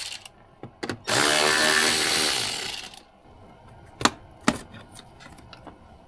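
Small power driver spinning out a speaker screw for about two seconds with a motor whine. Then two sharp clicks a little after the halfway point as parts are handled.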